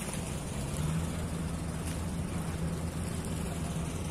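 Steady low drone of a boat engine from the river ferry approaching across the water.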